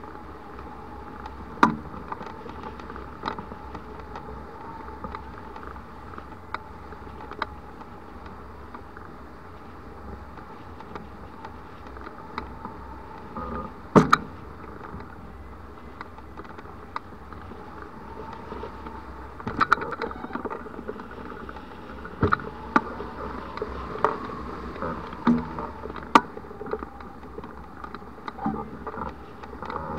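Wind rushing past a camera mounted on a hang glider in flight, with irregular sharp clicks and knocks on top, typical of the sail and rigging being jostled in rough air.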